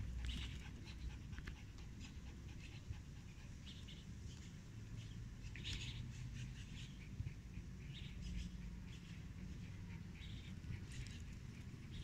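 Faint sounds of a dog close by: short, soft sounds about once a second over a low steady rumble.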